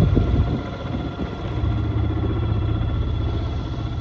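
A boat engine running steadily, heard as a low drone with a faint steady whine above it.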